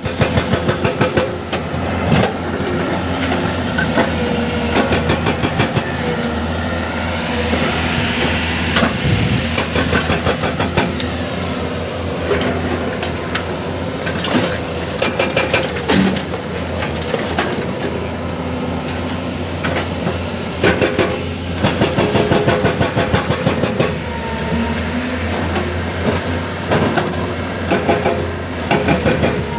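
Hydraulic breaker on an excavator hammering rock in bursts of rapid, evenly spaced blows, over the steady running of the excavator's diesel engine.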